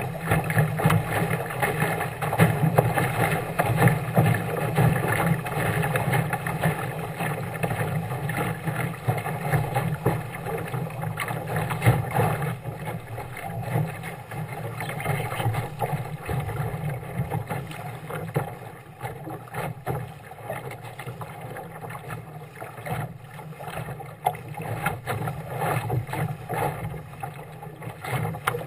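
Water rushing and splashing along the hull of a small sailing dinghy under way, with wind buffeting the microphone. It eases off somewhat in the second half.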